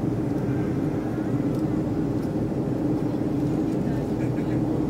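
Jet airliner cabin noise heard in flight: a steady, even roar of engines and rushing air with a low, constant hum.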